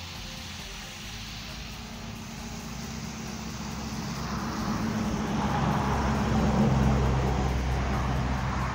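A motor vehicle passing by: a low engine hum and road noise that grow louder to a peak about two thirds of the way through, then begin to fade.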